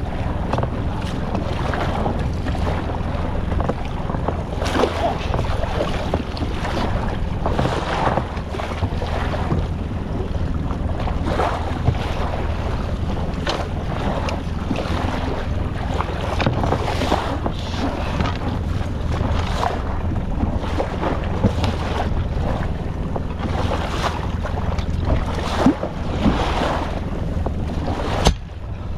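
Small inflatable boat under way at sea: a steady low motor hum under wind buffeting the microphone and water slapping against the hull.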